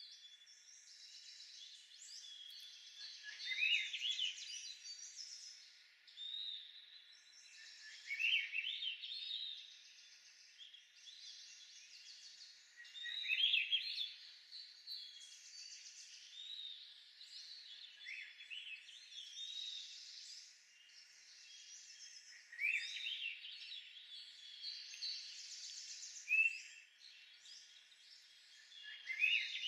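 Songbirds singing. A loud phrase of quick rising notes comes every four to five seconds, with softer chirping and twittering in between.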